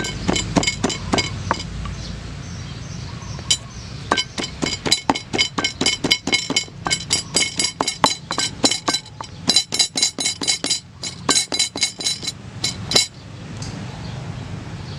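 Wooden pestle pounding red chillies and garlic in a wooden mortar: quick, sharp knocks several times a second. After a brief run there is a pause of about two seconds, then a long steady run of pounding that stops a couple of seconds before the end.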